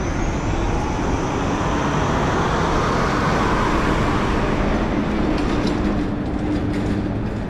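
A large vehicle passing close by on a city street: a loud rush that swells to a peak three to four seconds in and eases off, with a low steady hum near the end.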